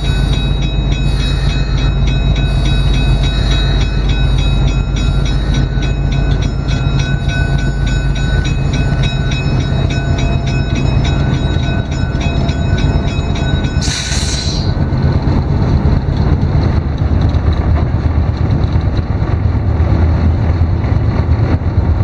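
GE 44-ton locomotive's twin diesel engines running steadily, heard from inside the cab as a continuous low drone with a faint whine above it. About fourteen seconds in there is a short burst of hiss, and the low drone grows stronger after it.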